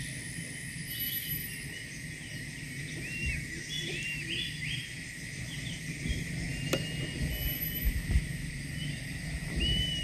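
Outdoor natural ambience: a steady high insect drone with a few short, arched bird chirps scattered through it, and some low thumps in the second half.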